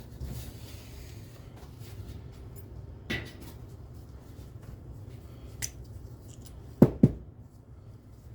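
Steady low hum of a small room, with a few light clicks and, about seven seconds in, two sharp knocks a fraction of a second apart, as of metal parts or a tool being handled during bicycle work.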